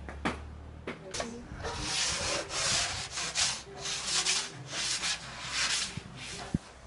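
Aluminium pizza peel scraping across a marble slab in a series of rough strokes as it is pushed under a raw pizza, with a couple of sharp clicks before the scraping starts.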